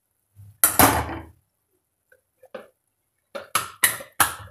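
A metal spoon clattering against metal kitchenware while salt is spooned into a pan of masala: one clatter about half a second in, then four quick sharp taps near the end.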